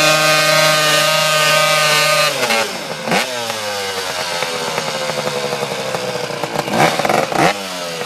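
Dirt bike engine held at high revs during a burnout, then the revs drop about two seconds in and it is blipped up and down a few times, the last two rev-ups close together near the end.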